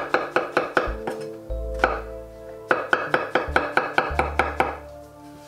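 Chef's knife dicing mushrooms on a wooden cutting board: quick, even chops at about six a second, pausing a moment about a second and a half in and stopping near the end.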